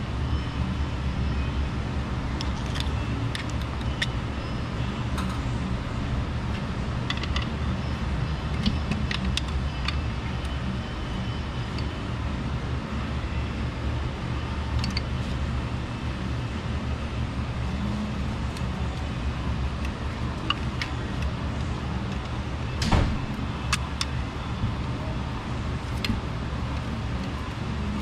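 Light metallic clicks and taps of a steel hook tool against a connecting rod and its new bearing shell as the rod is worked onto the crankshaft journal, a sharper cluster of clicks near the end. A steady low hum runs underneath.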